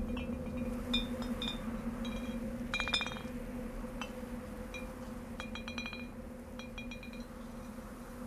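Glass bottles and jars hanging from a tree's branches clinking against one another in irregular, ringing chinks, with a cluster of quick clinks about three seconds in. A low steady hum sits underneath.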